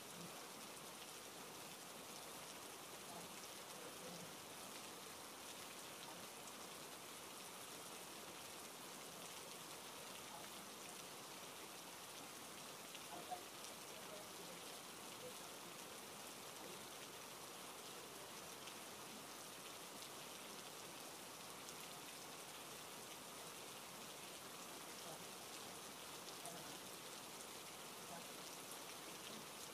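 Faint, steady hiss with no distinct events, and one short faint tick about thirteen seconds in.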